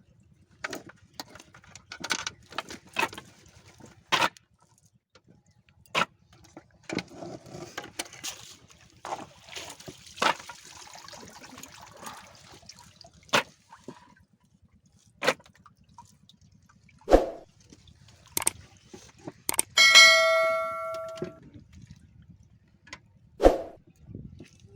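Scattered knocks and clicks, with a stretch of water splashing in the middle. About twenty seconds in, a metal object is struck once and rings for over a second.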